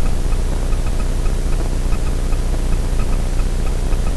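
Extra 300L's six-cylinder Lycoming engine running at low taxi power, a steady drone with hiss, heard from inside the cockpit.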